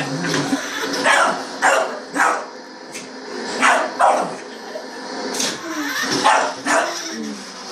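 A dog barking in short, sharp bursts, about nine in all, several coming in quick pairs.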